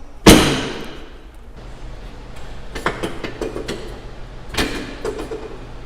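A sharp thump with a short ringing tail, then several lighter knocks and clicks: a patient and chiropractor moving on a chiropractic treatment table.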